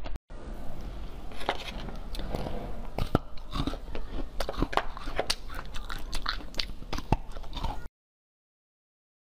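Close-miked biting and chewing of crunchy pineapple slices: many sharp, crisp cracks over steady chewing. It cuts off abruptly about eight seconds in.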